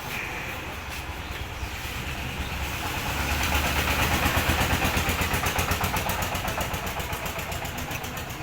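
Engine of a motor vehicle passing by: it grows louder to a peak near the middle and then fades, with a fast, even pulsing.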